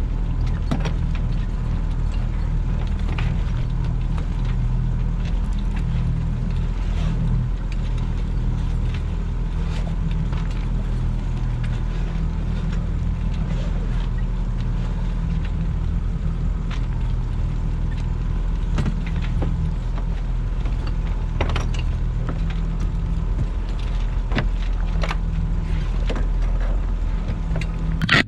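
Sailboat's engine running steadily, with scattered clicks and rattles from the rigging and sail hardware as the jib is hoisted.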